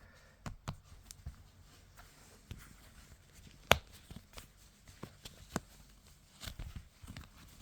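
Hands handling a leather wallet: scattered light taps and rustles, with one sharper click about three and a half seconds in.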